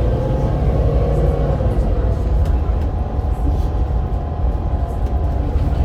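Volvo B7RLE bus's six-cylinder diesel and driveline running under way, a steady deep rumble with a wavering whine that fades about two seconds in.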